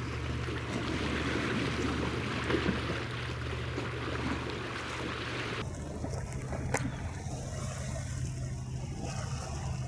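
Seaside ambience of wind on the microphone and water lapping at the rocky shore, with a steady low rumble underneath. The background changes abruptly a little over halfway through, and there is a single sharp click about seven seconds in.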